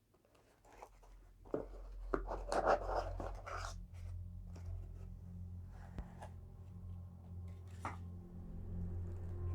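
Packaging being handled, with rustling and scraping for a couple of seconds. A steady low hum fades in about a second and a half in and carries on underneath.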